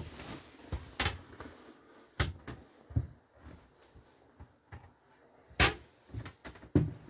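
A handful of separate knocks and clicks from wooden wardrobe doors and their latches being handled, the loudest about five and a half seconds in.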